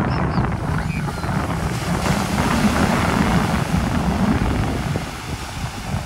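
Strong wind buffeting the microphone, a constant low rumble, over the hiss of breaking surf that swells in the middle and eases near the end.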